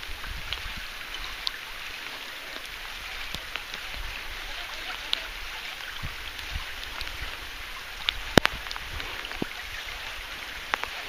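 Steady rain falling, an even hiss dotted with small sharp ticks of drops striking; one louder sharp click a little past eight seconds in.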